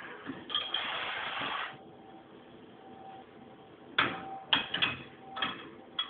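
Metal neula (barquillo) wafer irons being handled on a stove rack: a steady hiss for about a second near the start, then sharp metal clanks and knocks, about five in two seconds, as the irons are turned and opened.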